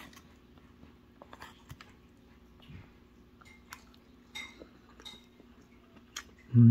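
Cutlery clicking and scraping lightly against a food container as meat and sambal are mixed into rice: scattered soft clicks about a second apart over a faint steady hum. A voice starts right at the end.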